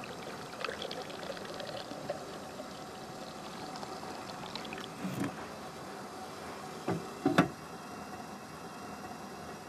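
Tea pouring from a steel teapot into a glass cup, a steady trickle with small clinks. Two short knocks about seven seconds in are the loudest sounds.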